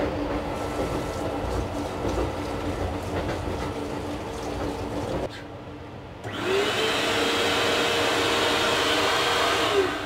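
A steady rushing noise, then an electric hand dryer in a train toilet switching on about six seconds in. Its motor whine rises as it spins up, it blows steadily for a few seconds, and it winds down with a falling whine near the end.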